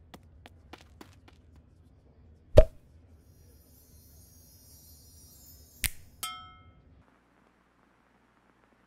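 Sound effects of a hand-drawn cartoon: a quick run of light clicks, a loud thump about two and a half seconds in, then another hit near six seconds followed at once by a short bell-like ding that rings away. Near silence for the last couple of seconds.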